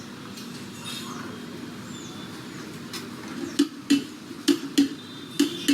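Metal spatula knocking against a flat cooking griddle in quick, sharp strikes, starting about three seconds in, over a steady street hubbub.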